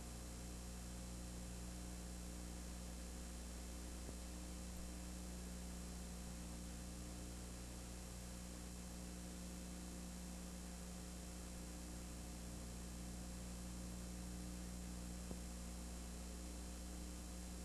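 Steady low electrical hum with an even hiss over it, unchanging throughout: mains hum and tape noise on an old videotape transfer, with no game sound audible.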